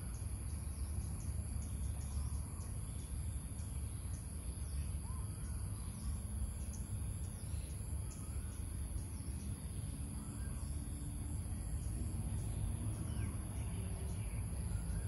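Outdoor ambience: a steady high-pitched insect drone, likely crickets, with a few faint, scattered bird chirps over a constant low rumble.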